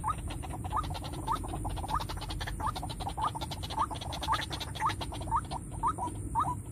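White-breasted waterhen (ruak-ruak) calling: a short rising note repeated about twice a second, over a low background rumble.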